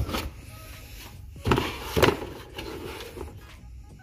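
A Logitech Rally Display Hub being pulled out of its molded pulp and cardboard packaging: rubbing and scraping, with two louder scrapes about a second and a half and two seconds in.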